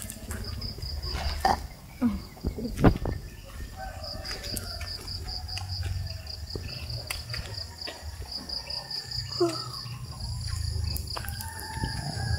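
Insects trilling high in quick, even pulses, in runs broken by short gaps, over a low rumble. A few sharp knocks come in the first three seconds.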